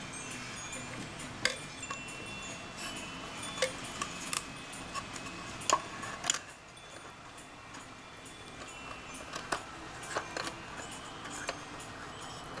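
Scattered sharp clicks and small taps of hand work on a cuckoo clock's bellows and whistle box as the bellows' screw is put in, with light chime-like tinkling ringing through it.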